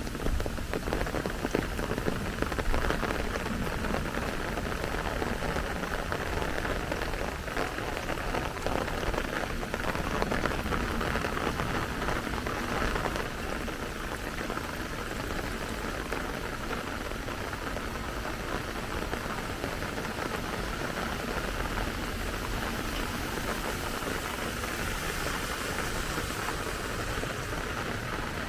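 Steady rain falling, a dense patter of individual raindrops hitting surfaces.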